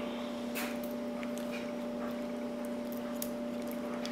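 Faint, irregular small clicks and scrapes of a lock pick raking inside a padlock, over a steady electrical hum.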